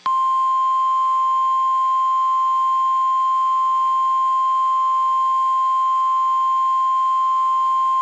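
NOAA Weather Radio 1050 Hz warning alarm tone, a single steady high-pitched tone that switches on abruptly and holds without a break. It signals that a warning message, here a severe thunderstorm warning, is about to follow.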